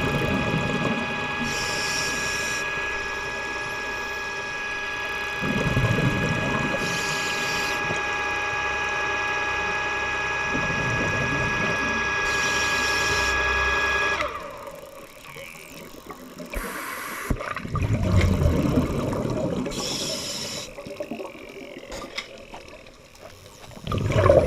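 A scuba diver breathing through a regulator underwater: a hiss on each inhale, then a low bubbling rush on each exhale, every few seconds. A steady mechanical whine runs alongside and cuts off about halfway through.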